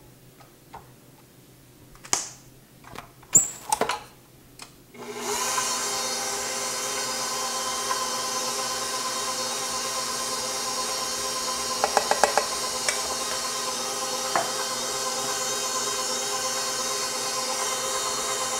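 A few sharp knocks against the steel mixing bowl, then about five seconds in a bowl-lift stand mixer switches on and runs steadily with a faint motor whine, kneading bread dough with its dough hook as flour is added. A quick run of clicks comes about twelve seconds in.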